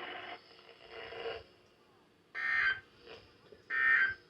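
Weather alert radio beeping its electronic alarm: two half-second beeps about one and a half seconds apart.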